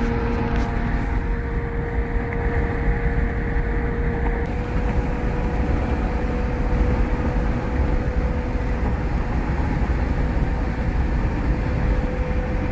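Steady road and engine noise of a moving car, a constant low rumble with a faint steady hum.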